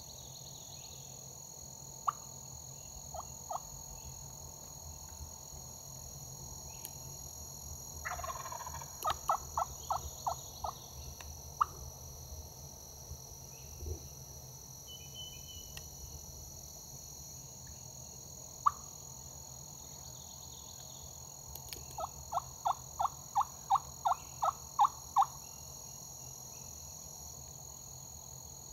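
Osceola wild turkey gobbling once, followed at once by a short run of about six yelps. A few single clucks are scattered through, and a longer, louder run of about eleven evenly spaced yelps comes near the end.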